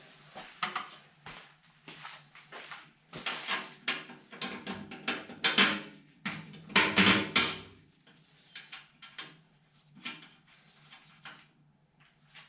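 Irregular clicks, clinks and knocks of hand tools and nuts and bolts being handled and fitted, thickest and loudest in a cluster from about four to eight seconds in, over a faint low steady hum.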